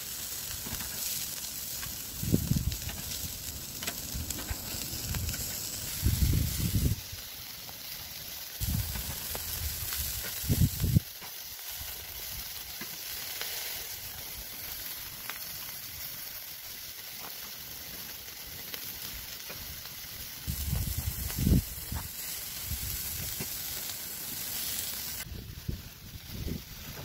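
Meat sizzling on a hot charcoal grill, with a steady hiss. A few short, louder low rumbles break in now and then.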